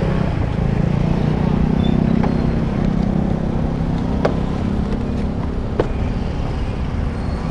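A small motor-scooter engine running steadily, with a few faint clicks.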